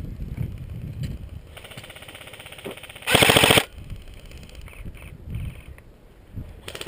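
Airsoft guns firing on full auto in rapid rattling strings: a quieter string about a second and a half in, then a loud half-second burst about three seconds in.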